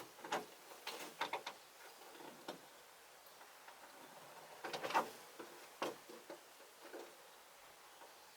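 Chickens moving about: scattered soft clicks and scuffs, loudest in a short cluster about five seconds in.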